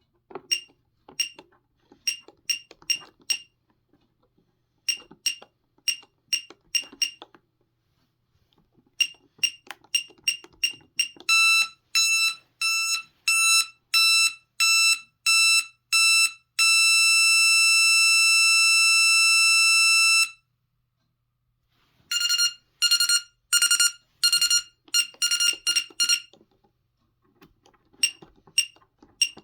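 Scantronic 9452 intruder alarm panel beeping erratically: scattered bursts of short electronic beeps, then a regular run of beeps about twice a second, a steady tone held for about four seconds, and a rapid jumble of beeps. The owner believes the panel's microprocessor is failing or its memory is corrupt.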